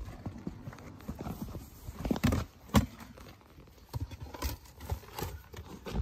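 Boots crunching and thudding unevenly in deep, fresh snow: a string of irregular steps, loudest a couple of seconds in and again near the end.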